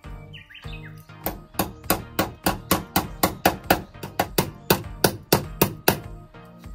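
A rapid run of hammer strikes, about four a second, starting about a second in and stopping near the end, over background music.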